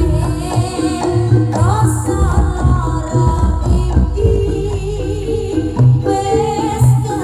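Live Javanese gamelan-style music: kendang hand drums beating a steady pattern under melodic instruments, with a voice singing over it.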